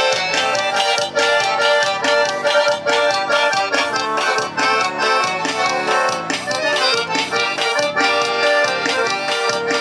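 Forró music: an accordion playing an instrumental passage over a steady percussion beat.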